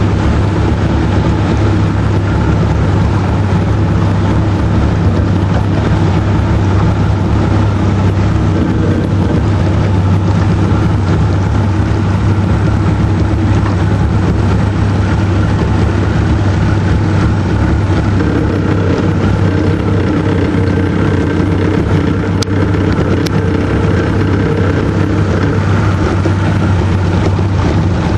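Small boat's tiller-steered outboard motor running steadily underway, a constant low drone with water and wind noise around it.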